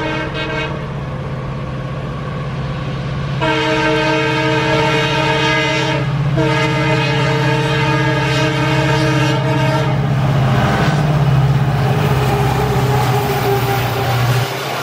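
Electric locomotive's horn sounding over the steady rumble of the running train: a short blast ending about a second in, then a long blast from about three seconds in, broken briefly near six seconds and lasting to about ten seconds. After that only the train's running rumble.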